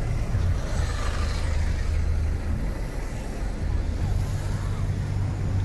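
City road traffic: a steady low engine rumble from nearby vehicles, with a haze of street noise over it.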